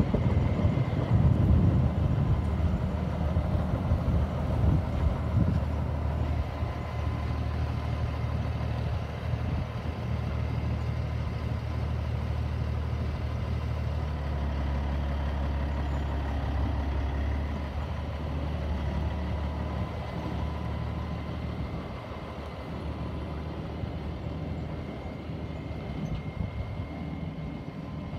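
Semi-truck tractor's diesel engine running as the truck pulls away and drives off, loudest in the first few seconds and growing fainter over the last several seconds as it moves away.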